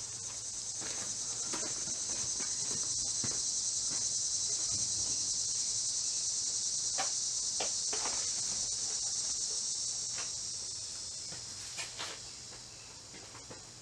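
A loud, high insect chorus buzzing without a break, swelling and then easing off toward the end, with a few faint clicks and scrapes of hand work on the car underneath.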